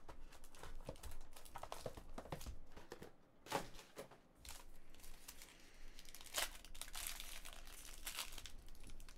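Hands handling a trading-card box with light clicks and rustles, then, from about six and a half seconds in, the foil wrapper of a Panini Prime hockey pack crinkling and tearing as it is pulled open.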